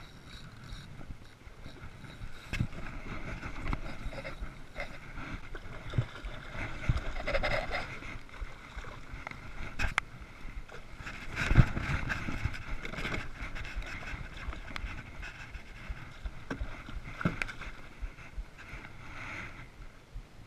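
Sea water lapping and splashing around a kayak, with a few sharp knocks on the hull and gear; the loudest knock comes a little past halfway.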